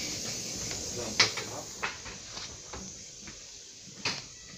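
Clacks and knocks of a commuter train's interior door being opened and shut as someone passes through, the loudest about a second in and another near the end, over the steady running noise of the moving train, which drops away after about two seconds.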